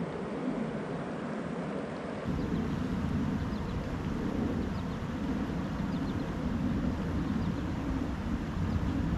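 Steady rushing of a flowing river, with a deeper rumble from about two seconds in.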